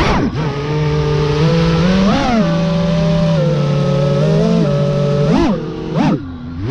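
FPV racing quadcopter's brushless motors whining, the pitch steady and then swelling up and down with the throttle. Near the end the throttle is chopped twice and punched back up in quick rising sweeps.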